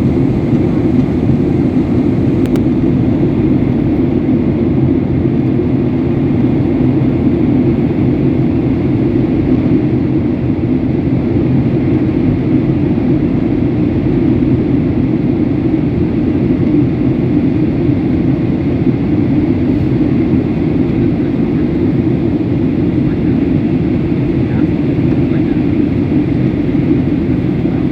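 Steady, loud low rumbling noise that holds unchanged throughout.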